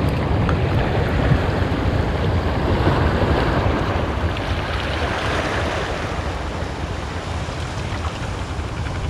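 Sea wind buffeting the microphone with a low rumble, over waves washing against a breakwater; steady, easing a little in the second half.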